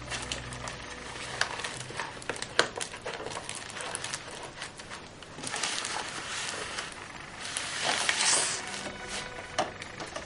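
Aspidistra leaves rustling and crackling as they are handled and tucked around floral foam, with scattered sharp clicks; the rustling is busiest around six and eight seconds in.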